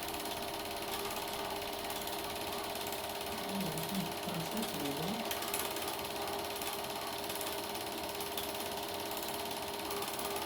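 Super 8 film projector running, its mechanism clattering in a fast, steady rattle as the film is pulled through.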